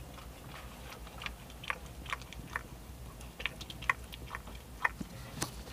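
Mother dog licking and chewing at a newborn puppy to clear away the birth sac: irregular wet smacks and clicks.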